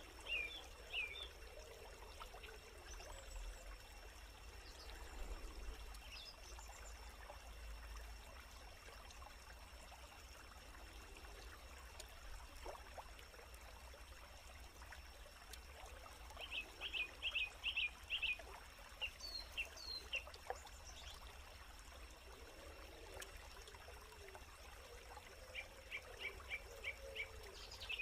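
Quiet forest-stream ambience: a faint steady trickle of running water, with a bird giving quick runs of short high chirps, a few near the start, a longer run past the middle and another near the end.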